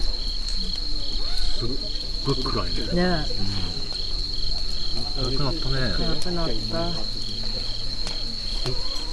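Crickets chirping in a steady high trill, with a second insect pulsing about two or three times a second. A few sharp crackles come from a wood campfire.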